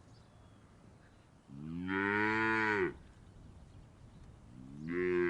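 Cow mooing: one long moo starting about a second and a half in, then a second moo beginning near the end.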